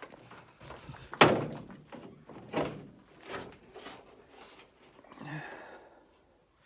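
A heavy thunk about a second in, then several lighter clunks and knocks: the hood and body of a 1996 Ford Thunderbird being worked as the hood is unlatched and raised.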